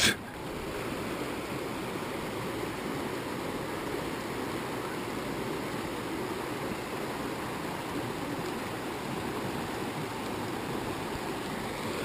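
Shallow, rocky river flowing over stones: a steady rush of water.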